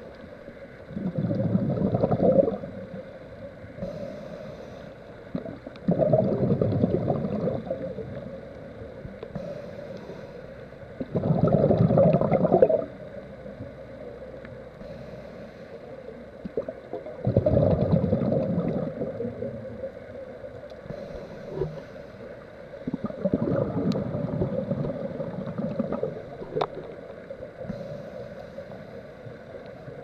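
Scuba breathing through a regulator, heard underwater: a slow, regular cycle of a short hiss on each inhale and a gush of bubbling on each exhale, about every five to six seconds.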